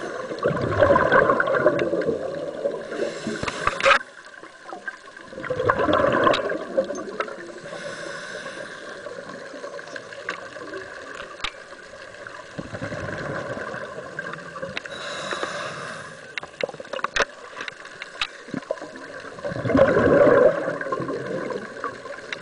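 Scuba diving regulator breathing underwater: three long bursts of exhaled bubbles gurgling past, with a quieter hiss and small clicks between them.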